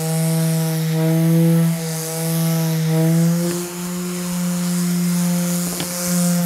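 Electric orbital sheet sander with 100-grit sandpaper running on bare solid wood, a steady motor hum whose pitch dips slightly a few times as the pressure on the pad changes.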